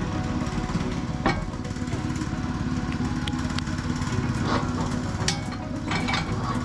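Woodland Mills HM122 portable sawmill's small gas engine running steadily, with a few sharp clicks and knocks about a second, four and a half, five and six seconds in.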